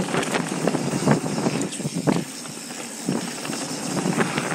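Mountain bike riding fast down a hard-packed dirt trail: tyre noise on dirt and gravel with a quick, irregular clatter of knocks and rattles from the bike over bumps, easing to a smoother, quieter stretch just past the middle.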